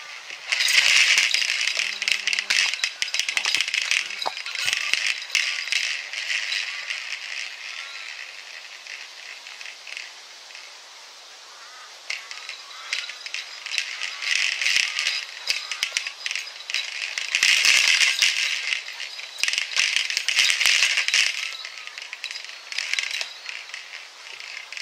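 A ball toy hanging from a cord rattling in repeated bursts as a dog noses and tugs at it, with quieter pauses between the bouts.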